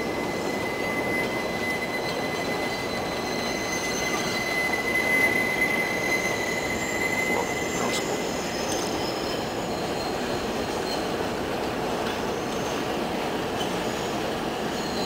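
Train wheels squealing: a high steady whine that fades out about seven seconds in, over the constant rushing rumble of the train running.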